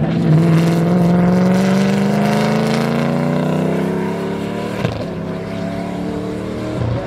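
Race car engine under hard acceleration, its note climbing steadily for about five seconds, then dropping at a gear change and running on at lower revs.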